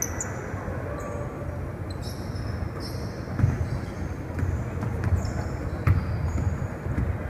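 Basketball bouncing on a hardwood gym floor as a player dribbles, several thuds about halfway through and later, with sneakers squeaking on the court.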